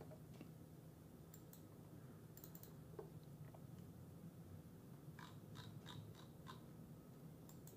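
Near silence: low room hum with a few faint, scattered clicks of a computer mouse as a chart is scrolled and zoomed.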